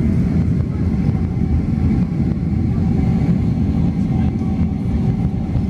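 Boeing 767-300 at takeoff, heard from inside the cabin: the jet engines at high thrust and the wheels rumbling along the runway. It is a loud, steady low rumble with faint steady engine tones above it.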